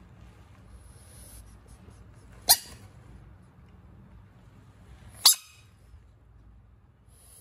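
Two short, loud squawks from a large frog being prodded by a finger, about three seconds apart, the defensive call of a disturbed frog.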